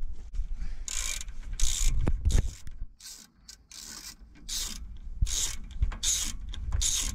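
Ratchet wrench clicking in short bursts, one on each back-swing of the handle, as it works a brake caliper bolt loose, with a pause of about a second midway.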